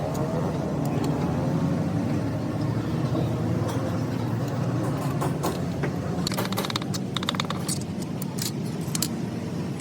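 A motor running with a steady low hum, with scattered light metallic clicks and taps over it, most of them in the second half.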